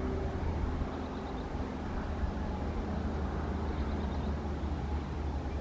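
Heavy freight train running past at a distance, a steady low rumble with a faint engine hum over it.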